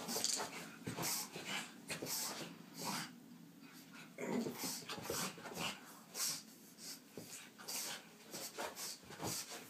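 Pug snorting and huffing in short, irregular bursts through its flat nose.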